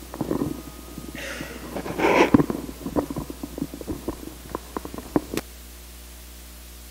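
Handling noise close to a microphone at the pulpit: a rustle and two breathy puffs, then a string of small clicks and knocks that stops about five and a half seconds in, over a steady low hum.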